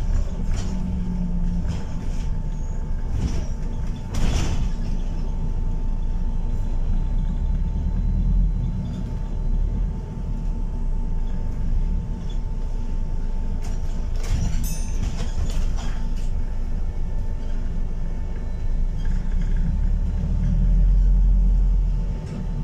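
Cabin sound of a New Routemaster diesel-electric hybrid bus under way: a steady low rumble of drivetrain and road noise with a thin constant whine, and a few brief rattles about four seconds and fifteen seconds in.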